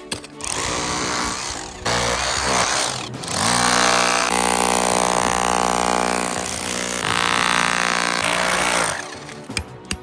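Cordless rotary hammer with a chisel bit hammering into rock, cracking it, in three runs: two short ones in the first three seconds, then one long run that stops near the end.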